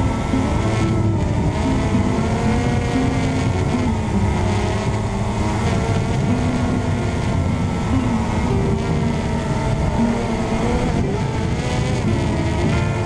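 RC Logger EYE One Xtreme quadcopter's motors and propellers whining steadily, as heard by the GoPro mounted on it, several pitches wavering up and down as the throttle shifts.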